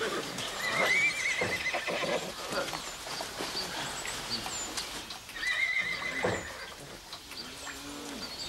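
Horses whinnying twice, about a second in and again around five and a half seconds in, each a quavering high call, with hooves clattering and stamping.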